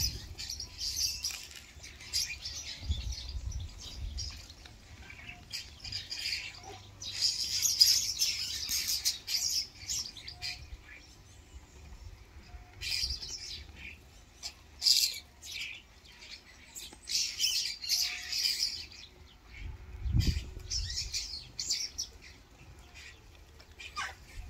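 A flock of European starlings, adults and juveniles, giving scratchy chattering and squawking calls in repeated bursts, with some wing flapping. A low rumble comes twice, a few seconds in and near the end.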